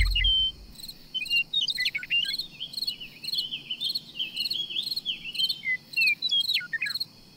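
Crickets chirping in an even pulsed rhythm, about two chirps a second, while a bird sings varied whistled notes that slide up and down. A deep low rumble dies away in the first half second.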